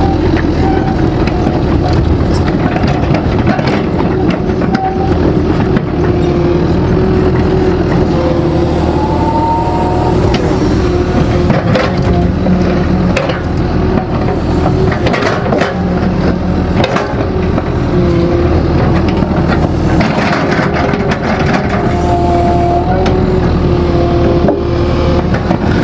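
Excavator engine running steadily under working load, with a higher tone that shifts in pitch now and then and scattered knocks and scrapes of digging.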